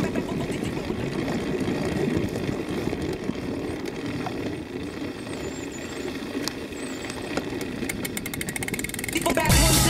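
Small motorcycle engine running as the bike rides along a bumpy dirt trail, a rough steady drone.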